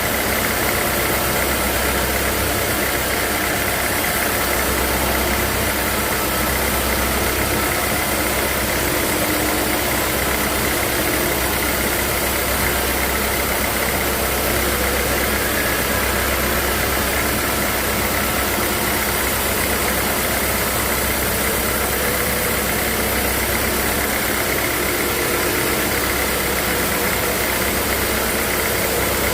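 Sawmill machinery running steadily: a continuous mechanical drone with a steady high whine.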